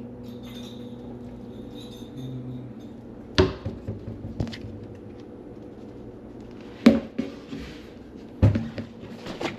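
Four sharp knocks and clatters of kitchen items being handled and set down, over a steady low hum.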